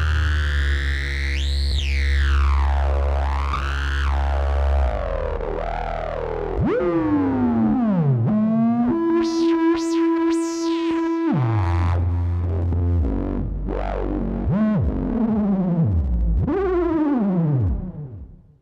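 Korg MS-20 synthesizer filters self-oscillating, squealing tones that glide up and down in pitch over a low steady drone, with one steady held tone about halfway through. It fades out quickly near the end.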